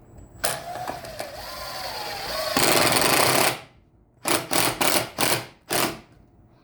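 Power drill driving wood screws into soft pine boards: one long run with a slowly rising motor whine that turns into a louder rattle near the middle as the screw seats, then a few short bursts as the next screw is driven in.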